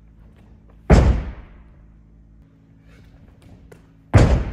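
Two heavy thuds about three seconds apart, each ringing briefly in the room: landings from flips.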